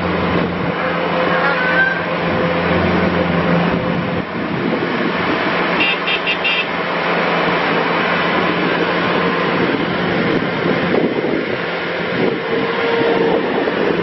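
2014 Bobcat S590 skid steer loader's diesel engine running steadily as the machine drives and manoeuvres on pavement. A few short, high beeps come about six seconds in.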